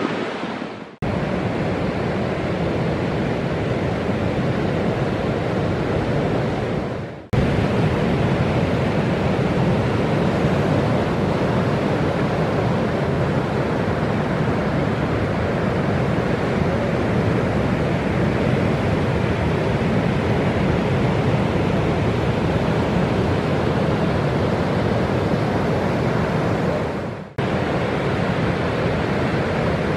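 Breaking ocean surf with wind buffeting the microphone: a steady, full rushing noise, heaviest in the low range. It dips out briefly three times, about a second in, around seven seconds and near the end, and each time comes straight back.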